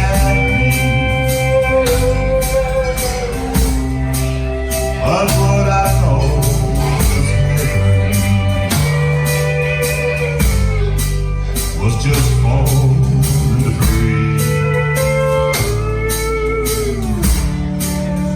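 A band playing a blues-rock song: a singer holds long, wavering notes over guitar, bass and a steady drum beat.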